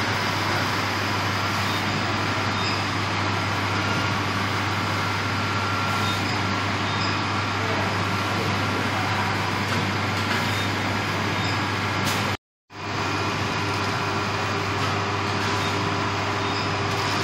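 Steady machinery noise of an automatic solar panel production line running, with a constant low hum under it and faint scattered ticks. The sound cuts out for a fraction of a second about twelve seconds in.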